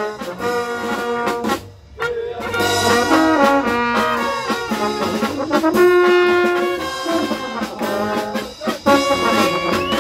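Small brass band playing a lively tune on trumpets, trombone, tuba and baritone horn, with snare drum. The music breaks off briefly just before two seconds in, then starts again.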